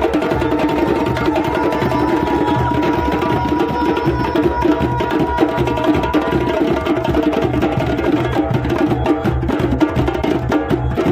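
A group of djembe hand drums played together in a fast, steady, interlocking rhythm. A thin, steady high tone is held over the drumming for about five seconds in the first half.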